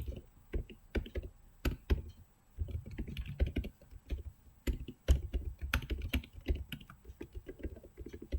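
Typing on a computer keyboard: irregular runs of key clicks with a few sharper strokes and a short pause.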